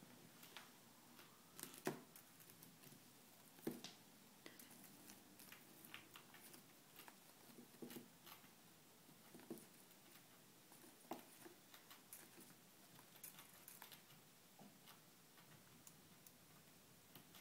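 A chinchilla gnawing on a chew ring held in its paws: faint, irregular little clicks and nibbles, with a couple of sharper clicks about two and four seconds in.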